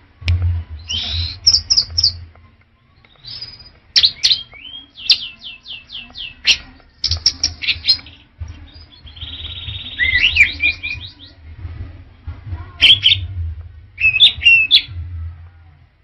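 Orange-headed thrush singing a varied song of short phrases, with rapid repeated notes, quick trills and short whistles separated by brief pauses, over a low rumble.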